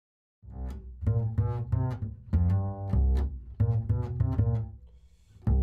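End-card music starting about half a second in: a run of short, deep notes with a strong bass line.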